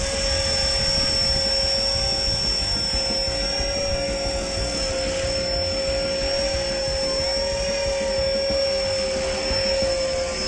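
E-Flite Blade 400 electric RC helicopter flying, its motor and rotors making a steady high whine with a second, higher whine above it and an even pitch throughout.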